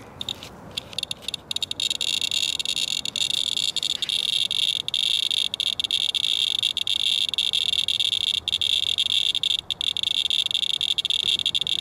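Radalert Inspector Geiger counter clicking so fast that the clicks run together into a continuous high chirring, starting within the first second and quickly thickening. The dense clicking is a high count rate: the sample of rainwater wiped from a truck is reading many times background.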